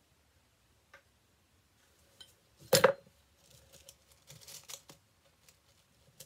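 Handling noise: one short, loud scrape or brush about three seconds in, then softer scattered rustles and small clicks as the hide and gloves are handled.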